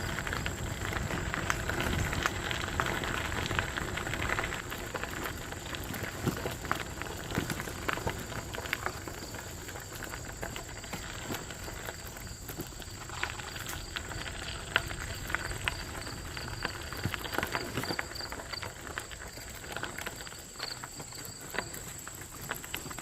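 Bicycle tires rolling over a gravel towpath, a continuous crackle of small crunches and pops, with a steady high-pitched whine in the background.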